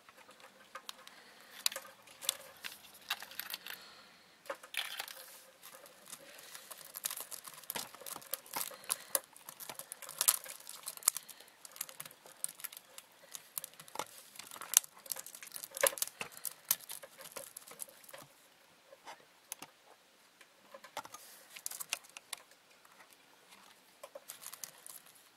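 Atlas beetle and Japanese giant stag beetle grappling on a bark-covered log: irregular scratching and clicking of their legs on the bark and their hard shells knocking together, busiest through the first two-thirds and sparser after.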